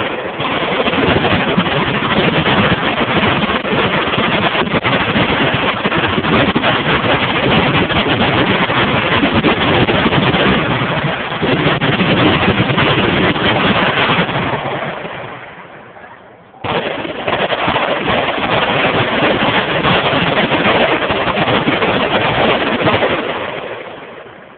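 Many machine guns firing at once, blending into a dense, continuous roar of gunfire. It dies away about fifteen seconds in, starts again suddenly a second or so later, and dies away once more near the end.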